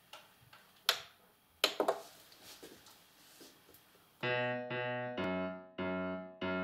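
A few sharp clicks, then about four seconds in a piano-like software instrument played from a Native Instruments Komplete Kontrol keyboard begins a run of short chords, about two a second.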